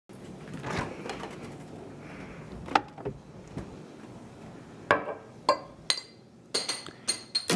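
Glass Coca-Cola bottle being handled and opened: a scattering of sharp clicks and knocks of glass and cap, several close together near the end.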